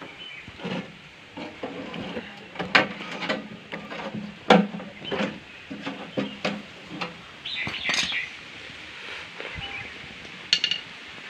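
Hammer striking the top of a tin drum around a square opening cut into it for a stove: a string of irregular metallic knocks and clanks, a few of them ringing briefly.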